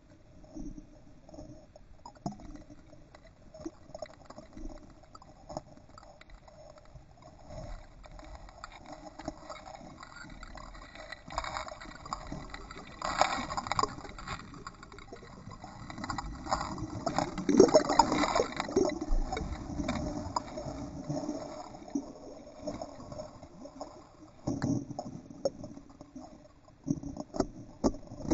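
Muffled underwater churning of an Entlebucher Sennenhund's legs paddling, with bubbles and scattered clicks, heard through a camera's underwater housing. It grows louder in the middle, then eases off.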